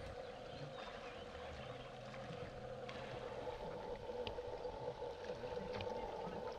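Faint, steady rush of water in an outdoor hot spring pool where people are soaking and swimming, with a few light ticks.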